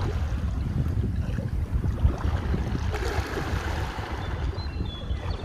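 Wind buffeting the microphone in a steady low rumble, over the wash of sea water.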